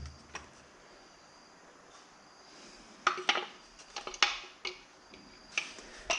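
Small metal parts and tools clinking and knocking on a workbench: a quick run of sharp clinks about halfway through, then two more near the end.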